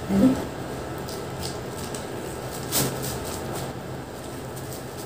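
Quiet room with a steady low hum and a few light clicks and taps, the loudest about three seconds in.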